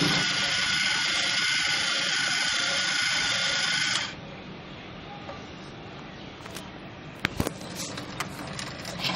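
DC motor of a floor-cleaning mechanism spinning its round mop pad: a steady whine with several high tones over a rushing noise, which cuts off abruptly about four seconds in. A few sharp clicks and knocks follow near the end.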